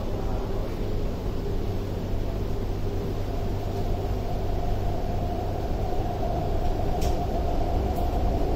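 Cabin noise of an MTR Tuen Ma Line C-train, the Chinese-built electric multiple unit, pulling away from a station: a steady low rumble, joined about halfway through by a steady traction-motor whine as the train gathers speed, with a few light clicks near the end.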